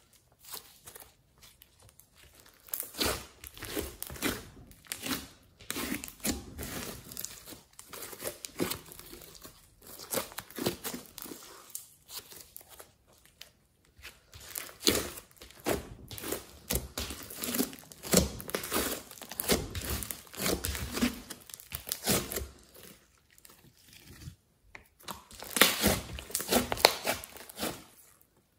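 Hands kneading, folding and stretching thick glossy slime mixed with clay and glitter: irregular sticky crackles and pops in clustered bursts as it is pressed and pulled apart, with brief pauses between handfuls.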